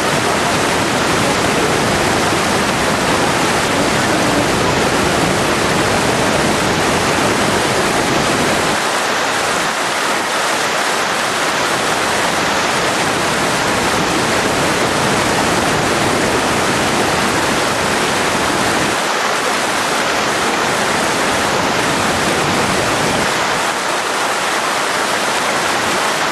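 Large waterfall in flood, muddy water pouring over a wide rock ledge: a loud, steady rushing sound. Its low rumble thins about nine seconds in and comes and goes after that.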